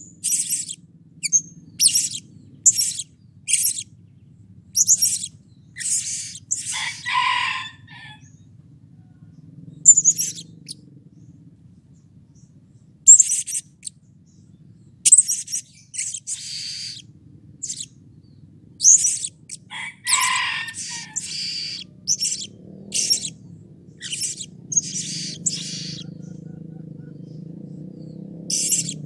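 Male blue-crowned hanging parrot (serindit) giving short, shrill, high-pitched call notes in irregular runs of one or two a second, with brief pauses; a couple of the notes are longer and harsher. A faint steady low hum sits underneath.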